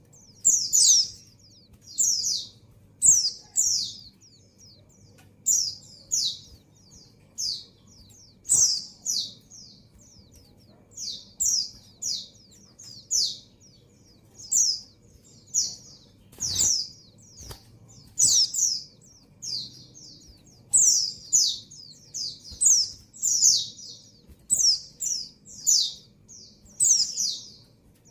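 Female white-eye (pleci) calling: short, high, falling chirps repeated about once a second, sometimes in quick pairs. It is the call of a female in breeding condition calling for a male.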